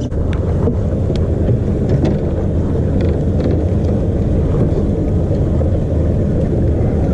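Bass boat's outboard motor running steadily as the boat moves across the lake, a loud low drone.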